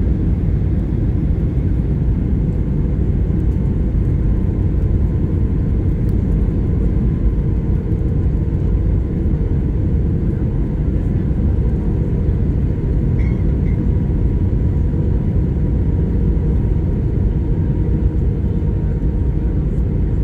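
Steady low cabin roar of an Airbus A320 on approach, engine and airflow noise heard inside the passenger cabin, with a faint steady hum running through it.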